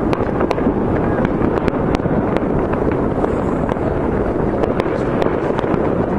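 Fireworks and firecrackers going off all over a city, heard from a distance: a dense, continuous crackling din with many sharp bangs, about two or three a second.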